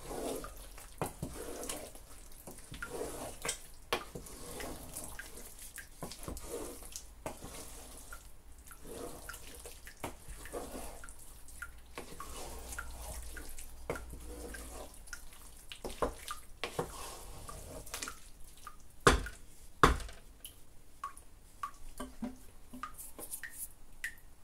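Wooden spatula stirring thick egusi soup in a pot: wet squelching and scraping with many light knocks against the pan, and two louder knocks about a second apart roughly three-quarters of the way through.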